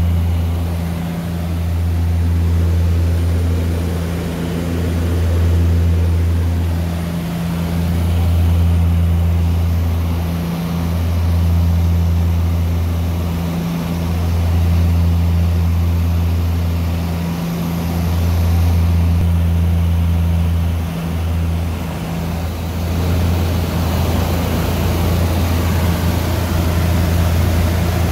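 Propeller aircraft's engines and propellers droning steadily, heard from inside the passenger cabin in flight, with a deep hum that swells and fades about every three seconds. More airy hiss comes in near the end.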